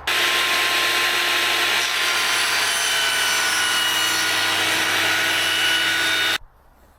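Skil 10-inch table saw running and ripping a cut along its fence: a loud, steady motor whine over the noise of the blade cutting. It stops abruptly about six seconds in.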